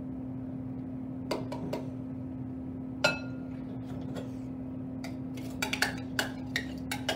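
Cut strawberries tipped from a plastic measuring cup into a glass mixing bowl, and a utensil tapping and scraping the cup: scattered knocks and clinks, one ringing glass clink about three seconds in, and a cluster of quick taps near the end.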